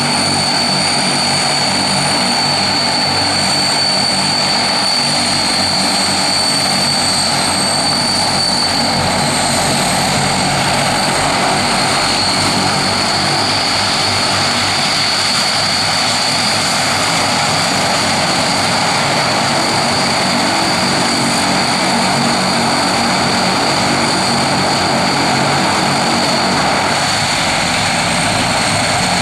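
Propeller aircraft engines running steadily and loudly at close range, a constant high turbine whine over the deep drone of the propellers.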